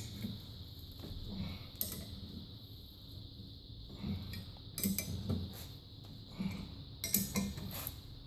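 8mm Allen key clinking against the steel crank arm bolts as they are tightened down by hand, with scattered sharp metallic clicks and knocks, several close together near the end.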